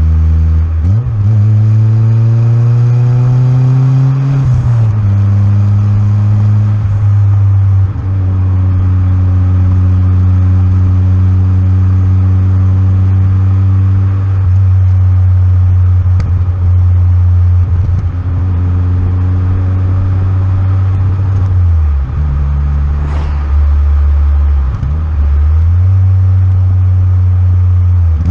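Turbocharged Fiat Cinquecento engine and exhaust under way. The engine note climbs under acceleration, drops at a gear change about four seconds in, then runs fairly steady with several more shifts and throttle changes.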